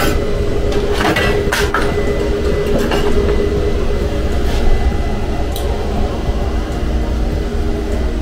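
A few sharp metal clinks of hand tools and clamps being handled, mostly in the first few seconds, over steady background music.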